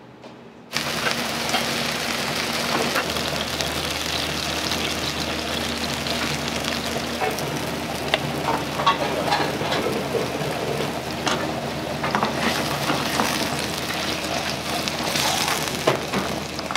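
Food frying in a kitchen: a steady sizzle with scattered crackles, starting abruptly under a second in.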